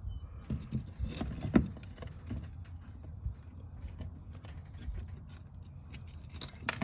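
Scattered light metallic clicks, clinks and knocks of tools and small parts being handled, the sharpest about a second and a half in and another near the end, over a low rumble.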